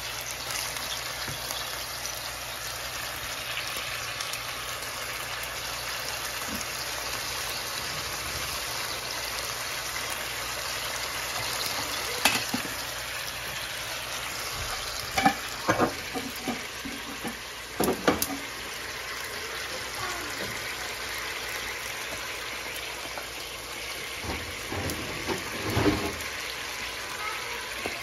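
Chicken pieces and whole tomatoes sizzling in a frying pan, a steady hiss as the chicken's released water cooks off. A wooden spatula knocks and scrapes against the pan several times, mostly in the second half.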